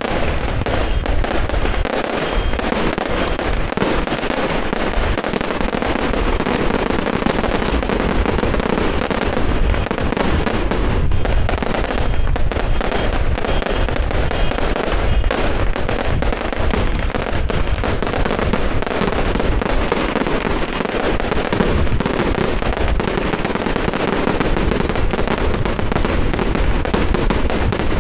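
Firecrackers and fireworks going off in a dense, unbroken barrage of rapid crackling bangs.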